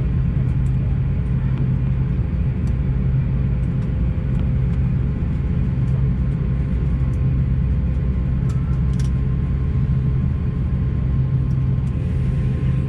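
Steady low rumble inside the cabin of an Airbus A350-900 airliner, with a constant hum and a few faint clicks now and then.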